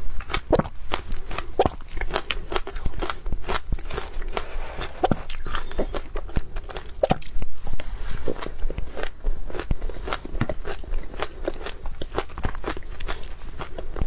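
Close-up crunching and chewing of powdery shaved ice dusted with matcha powder: a rapid, continuous run of crisp crackling crunches as mouthfuls are bitten and chewed.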